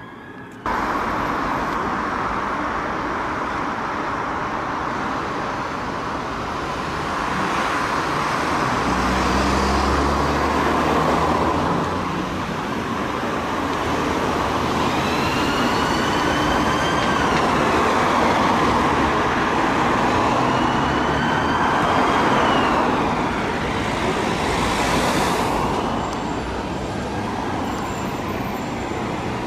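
Busy city road traffic, a steady wash of passing cars, vans and buses, with a deep engine rumble around ten seconds in. Partway through, an emergency vehicle's siren sounds over the traffic, rising and falling slowly twice.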